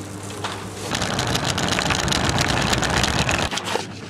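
Wheels of a rolling shopping basket rattling over a hard store floor, heard close through a camera mounted on the basket. The rattle starts about a second in and stops just before the end.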